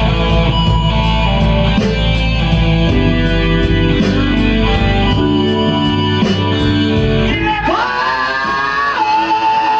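Blues-rock band playing: electric guitar, bass and drums with a steady hi-hat beat. About seven and a half seconds in, the cymbals drop away and a lead guitar note bends up and is held as a long sustained note.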